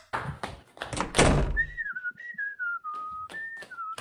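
A whistled tune that comes in about a second and a half in, over a beat of sharp taps, about three a second: the backing track of a dancing-cat meme clip.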